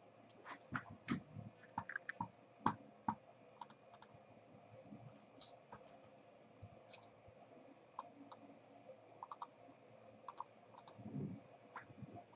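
Faint, scattered clicks and taps from trading-card boxes and packs being handled, with a short rustle near the end.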